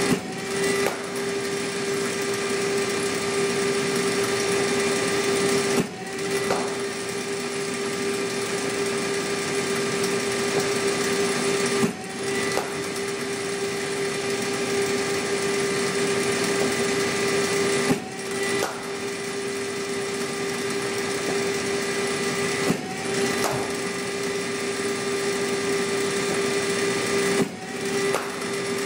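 Cricket bowling machine running with a steady hum, firing a ball about every five to six seconds: each delivery brings a brief dip and a knock as the spinning wheels grab the ball, then the hum rises in pitch as the wheels spin back up to speed.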